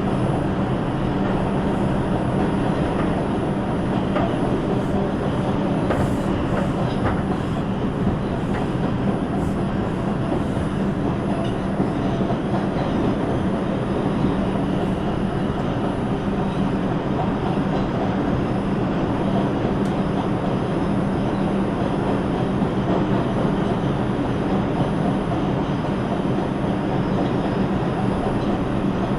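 New York City subway train (a 5 express) running between stations, heard from inside the car: a steady rumble of wheels on the track with a constant low hum.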